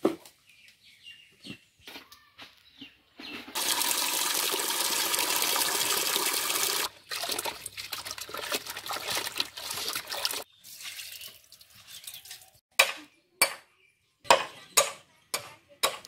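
Water running into a bucket for about three and a half seconds, then hands sloshing and rubbing fish in the bucket of water. From about 13 s, a machete chopping green bamboo, a sharp chop roughly every half second.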